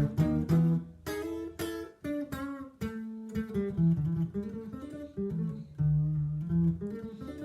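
Squier Stratocaster electric guitar playing a run of picked power chords, moving from shape to shape, as finger-warming practice.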